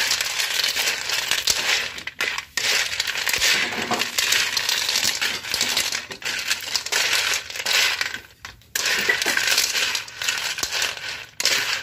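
Telescope snail shells clattering against each other and the metal wok as they are stirred with a wooden spatula. It comes in long stretches, with brief pauses about two seconds in and again about eight seconds in.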